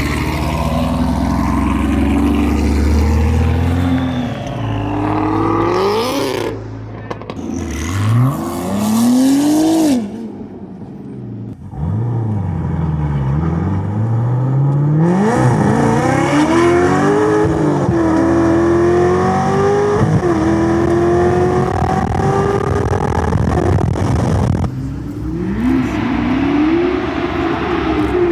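A high-performance car engine revs up and down several times, then from about twelve seconds in pulls hard at full throttle, its pitch climbing in long rising steps through the gear changes. The sound changes abruptly about twenty-five seconds in, and the engine climbs again.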